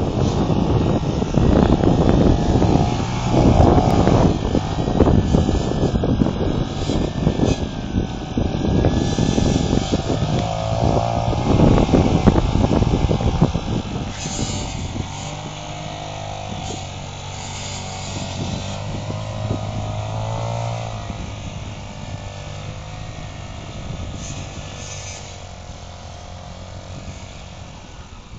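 Quad bike engine revving up and down as the ATV spins and slides in snow, with loud irregular rumbling in the first half. The engine grows fainter over the second half as the quad moves away.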